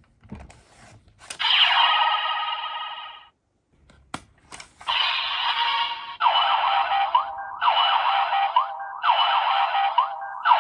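Electronic sound effects from a DX Kamen Rider Gotchard Chemy summoner toy, played through its small speaker. A few plastic clicks of the mechanism come first, then a short electronic sound. Two more clicks follow, then a looping phrase with rising siren-like glides that repeats about every second and a half.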